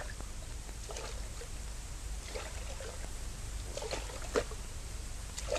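River water lapping against a log raft: a few small, separate splashes over a steady low rumble, the loudest a little past the middle.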